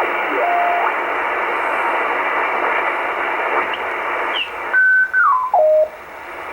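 Shortwave radio receiver hissing with a dense band of static and signal noise. About four and a half seconds in it is retuned and the noise drops away, and a whistling tone steps down in pitch as the dial moves across a signal.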